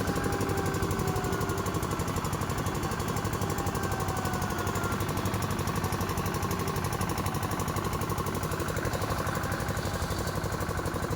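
Powered track-repair machinery with an engine running and a very fast, steady hammering or vibrating action. A whine slides slowly down in pitch over the first few seconds.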